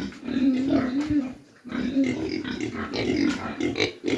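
Pigs grunting in runs of low, wavering calls, broken by a short pause about a second and a half in.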